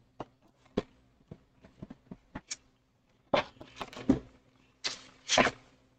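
Trading cards being handled: a few light ticks and taps, then two stretches of cards sliding and rustling against each other in the second half.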